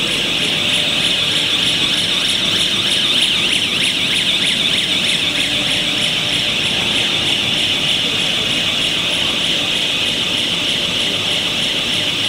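Air bubble film making machine running: a steady high-pitched hiss and whine with a faint, fast, regular ticking, unchanging throughout.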